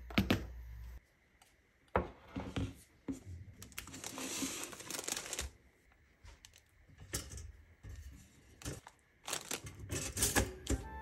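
Crinkling of a plastic bread bag as bread slices are taken out, with scattered clicks and knocks and a cluster of clicks near the end as a pop-up toaster is set.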